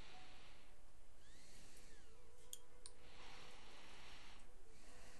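Metal dental instruments clicking sharply twice in the mouth, with spells of hiss, the longer one about three seconds in, lasting about a second and a half.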